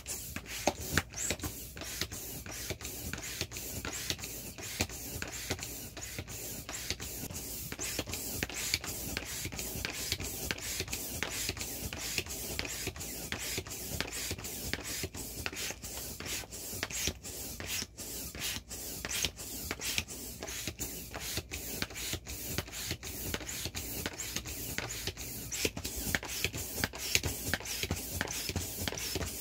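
Air pump blowing a steady hiss through a hose into the vinyl wheel of an inflatable ATV. The vinyl crackles and clicks as the wheel fills out.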